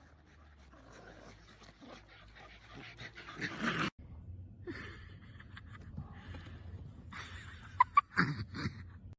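A dog's vocal sounds. A sudden cut comes about four seconds in, and the loudest moment is a couple of short, sharp sounds near the end.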